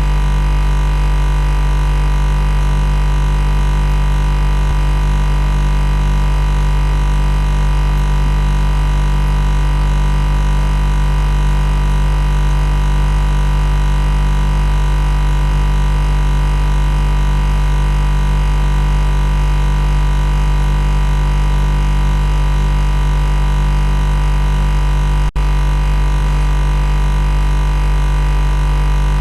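Loud, steady machine buzz: a low hum with many overtones, unchanging in pitch, that cuts out for an instant about 25 seconds in.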